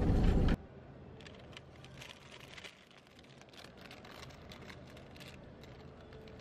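Car-cabin noise that cuts off abruptly half a second in, followed by faint, irregular crinkling and rustling of clear plastic flower sleeves as wrapped bouquets are handled.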